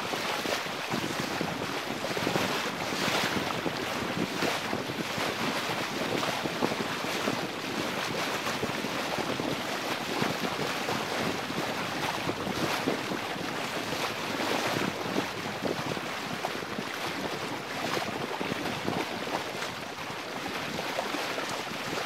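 Water rushing and splashing along the hull of a Lancer 25 sailboat moving under sail, with wind buffeting the microphone. A steady, uneven wash of noise with no engine.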